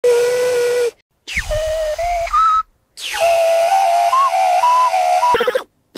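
Beatboxer's 'whale whistle': a low, breathy mouth whistle into a handheld microphone, its pitch bent by fingers pressing on the cheek. Three phrases with short silences between them: a steady low note, then a note that steps upward, then a longer wavering note that jumps between pitches.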